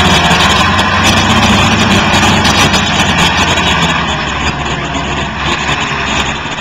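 Truck engine running as a tanker loader truck drives away, the sound easing off over the last couple of seconds.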